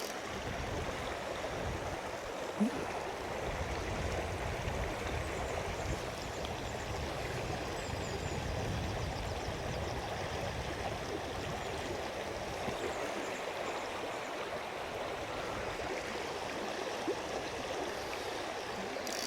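Fast-flowing river water rushing steadily, with a brief knock a little over two seconds in.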